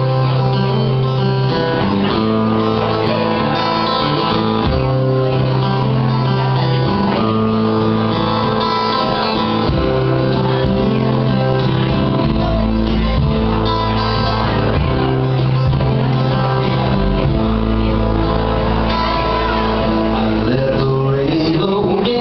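A live band playing a song on electric and acoustic guitars at steady volume, with deep bass notes joining about halfway through.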